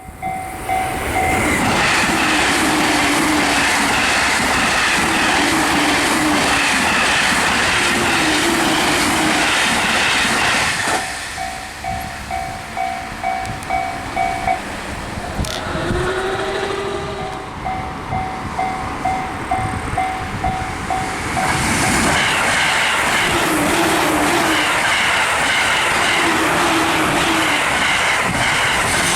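Japanese level-crossing alarm ringing its rapid two-tone bell while Jōban Line trains pass at high speed. A train rushes past loudly for about ten seconds, its wheels clattering over rail joints as it goes. A second train rushes through from about twenty-two seconds in.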